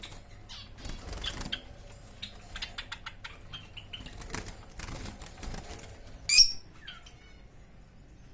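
Pet birds fluttering and shuffling about, with scattered short chirps and one loud, harsh squawk a little past the middle.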